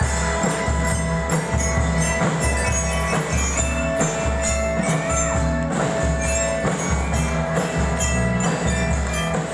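Drum and lyre ensemble playing a tune on bell lyres and xylophones: many bright struck notes from metal and wooden bars, continuous, over a low steady bass.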